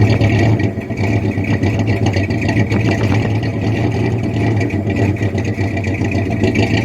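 Freshly rebuilt engine of a 1979 Ford F150 with a two-barrel carburetor, running steadily as it warms up, without revving; it sounds really good.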